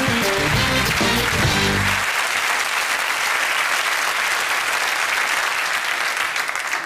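Studio audience applauding over a short music jingle. The jingle stops about two seconds in and the applause carries on alone.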